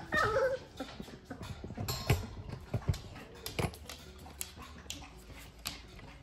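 Young puppies playing: a brief whining yelp in the first half second, then scuffling with scattered light taps and clicks as they move about.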